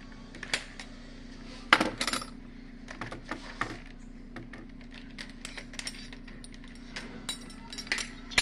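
Metal spoons clinking against one another as they are sorted and put away: scattered light clicks and chinks, with one louder clank about two seconds in.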